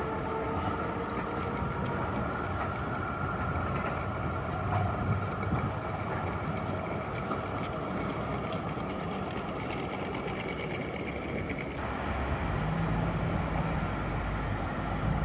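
Street traffic noise with an NGT8D low-floor articulated tram running some way off: a steady rumble under a thin steady whine that stops about twelve seconds in, after which a deeper rumble grows.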